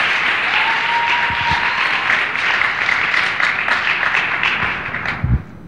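A congregation applauding, dying away near the end, followed by a single thump.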